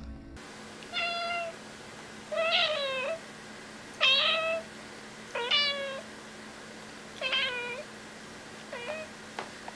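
Grey tabby domestic cat meowing six times in a row, short insistent meows about one every second and a half.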